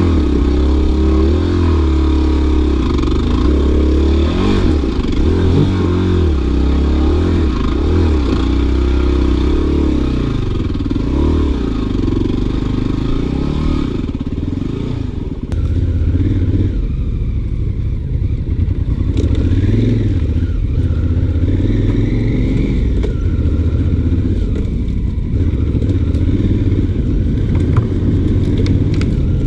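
Off-road motorcycle engine running under load at trail speed, its revs rising and falling over and over as the throttle is worked on rough single track.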